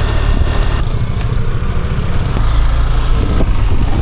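Motorbike engine running steadily while riding along a rough back road.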